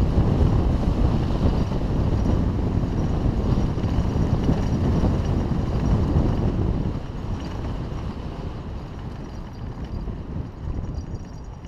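Wind rushing over a helmet-mounted GoPro Hero3 and a Haro hardtail mountain bike's tyres rumbling over a dirt fire road during a fast descent. The rush is loud at first and quietens about seven seconds in.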